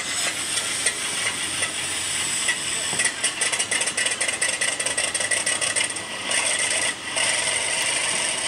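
An engine running, played back through a phone's speaker; to the listeners it sounds a little worn out.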